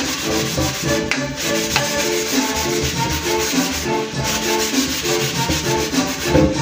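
A metal spatula scraping and stirring petchay around a wok. Background music with a melody plays underneath.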